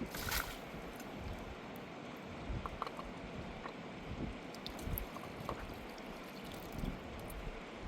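Fast-flowing river rushing steadily, with a short noisy burst about a third of a second in and a few faint clicks.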